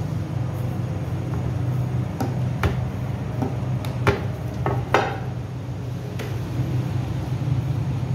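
Scattered knocks and clinks of bakery tools or dishes over a steady low machine hum, the loudest two knocks about four and five seconds in.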